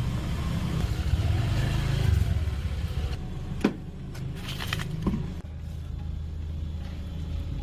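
A motor vehicle engine running with a low rumble, louder for the first three seconds and then settling to a steadier hum. A few sharp clicks or knocks come around the middle.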